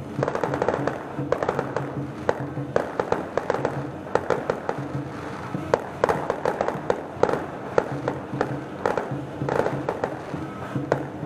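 Fireworks going off in a dense run of sharp, irregular cracks and bangs, several a second, with music playing underneath.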